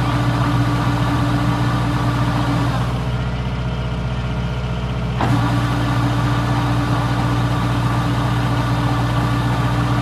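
Diesel engine of a combine harvester running steadily. Its sound turns muffled for about two seconds in the middle, then comes back abruptly.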